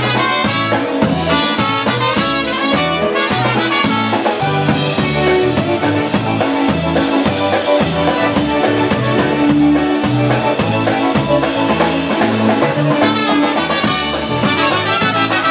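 Polka band playing an instrumental passage: a concertina and a piano accordion carry the tune over electric bass guitar and a drum kit keeping a steady beat.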